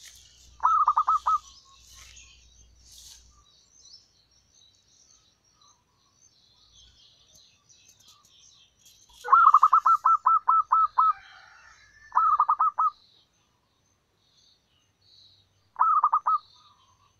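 Zebra dove calling in four bursts of quick staccato coos, the longest of about nine notes just past the middle, the others shorter. Faint, higher chirping of other small birds runs underneath, mostly in the first few seconds.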